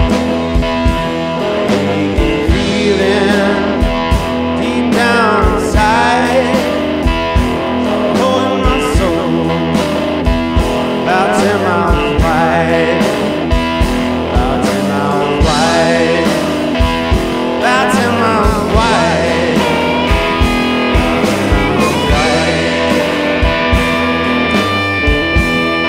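Blues-rock music with electric guitar and a steady drum beat.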